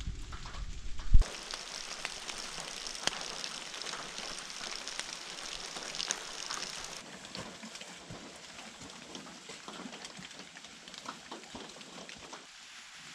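Rain falling on leaves and the ground: a steady hiss with many single drops ticking, lighter in the second half. A single sharp knock about a second in is the loudest sound.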